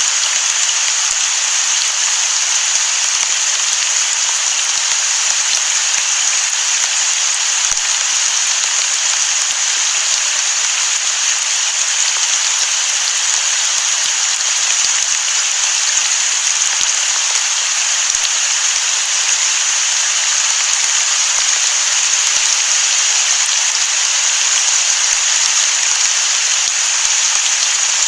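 Steady rain, a dense even hiss that never lets up, with no thunder.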